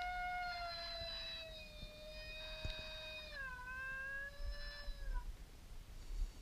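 Coyote-hunting predator call sounding one long, drawn-out, howl-like wail that sags slowly in pitch. About three and a half seconds in it breaks and carries on a little lower, then stops about five seconds in.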